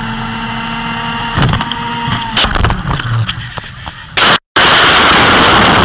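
Racing kart engine running steadily at high revs, then a run of knocks and bangs as the kart crashes, followed by a loud, harsh rush of noise that breaks off for a moment.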